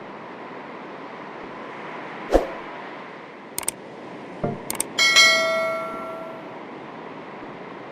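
Gentle waves washing steadily, broken by a few hollow knocks and clicks, then a metallic clang about five seconds in that rings out for about a second and a half.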